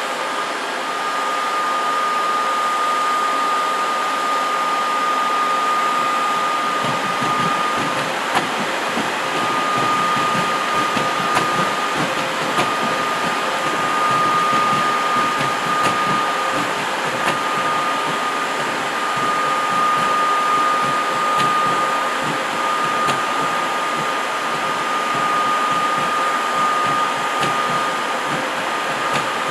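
ÖBB railjet coaches rolling past, pushed by an ÖBB class 1116 Taurus electric locomotive: a steady rumble and hiss of wheels on rail with scattered clicks, and a thin steady high whine from about a second in that breaks off briefly once.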